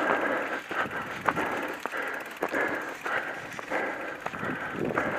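Mountain bike rolling along a gravel trail: tyres crunching on loose stones, with frequent irregular clicks and rattles from the bike.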